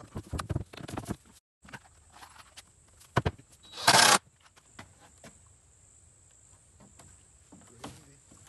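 Knocks and thumps of a plywood wall panel and lumber being handled on a wooden deck, with a short loud burst of noise about four seconds in and scattered light clicks after it.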